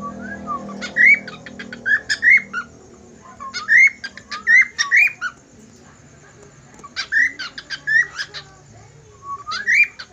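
Cockatiel whistling and chirping in short phrases: four bursts of quick rising whistled notes mixed with sharp chirps, a few seconds apart.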